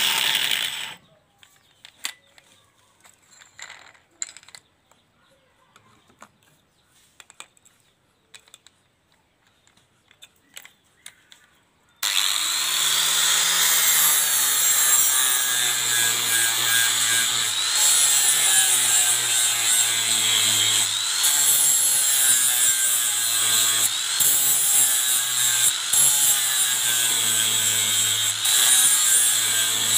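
Electric angle grinder grinding a machete blade made from leaf-spring steel. It runs for about a second, then stops, leaving near silence with a few faint clicks. About 12 seconds in it starts again abruptly and grinds steadily to the end, its motor pitch dipping and recovering as the disc is pressed against the steel.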